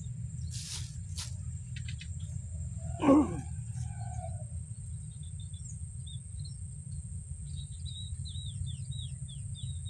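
Outdoor ambience: a steady high insect drone over a low background rumble, a single short louder sound about three seconds in, and a bird chirping in quick falling notes near the end.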